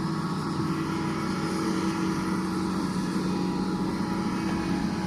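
Doosan DX225LCA excavator's diesel engine running at a steady speed: a constant, even drone with a held hum that does not rise or fall.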